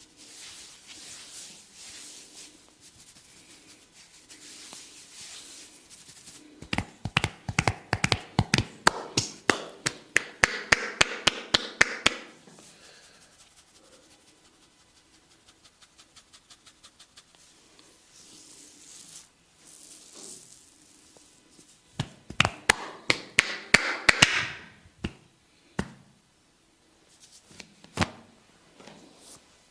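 Percussive massage strokes on the body: two bursts of rapid, sharp taps, about five or six a second, with soft rubbing of skin between them and a few single loud clicks near the end.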